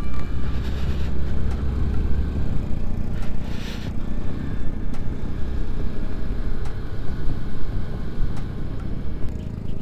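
Motorcycle running along at a steady pace, heard from the rider's seat, with a low rumble of engine and riding noise that is heaviest in the first few seconds.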